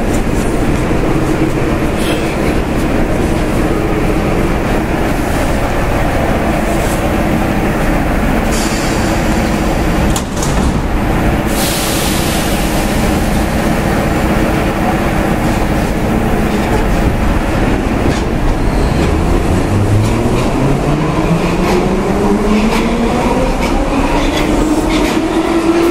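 Soviet-built 81-717/81-714 metro train standing at the platform with a steady hum. Its doors close with a hiss and a thud about ten seconds in. Near the end it pulls away, its traction motors giving a whine that rises steadily in pitch as it accelerates.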